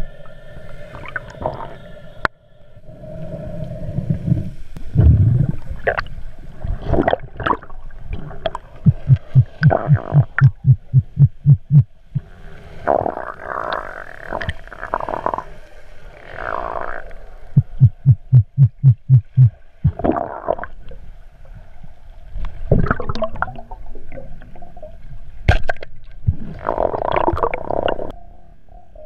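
Underwater sound picked up inside a GoPro camera's waterproof housing in a strong current: muffled gurgling and rushing water with scattered knocks, and twice a run of rapid low thumps, about six a second.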